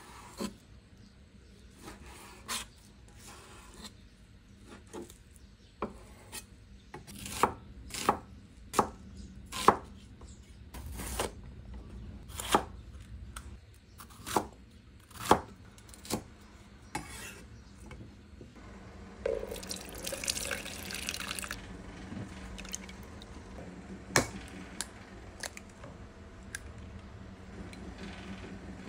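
Kitchen knife chopping on a wooden cutting board: a run of sharp knocks, irregular and mostly under a second apart, loudest a few seconds in. Later comes a short hissing rustle, then a few scattered light clicks.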